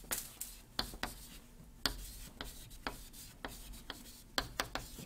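Faint writing: irregular sharp taps and light scrapes of a writing tool, roughly two a second.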